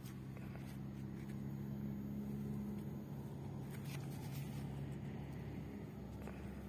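A faint, steady low hum of a running motor, with a few light clicks and rustles as soil is sifted by a gloved hand.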